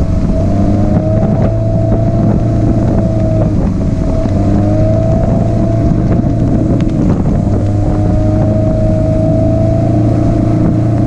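Motorboat engine running steadily at towing speed, a constant drone with a whine that wavers slightly in pitch, over the rush of the wake and wind on the microphone.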